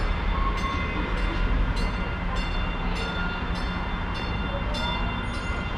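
Baltimore Light Rail train approaching the platform: a steady low rumble, with a faint high clicking about twice a second.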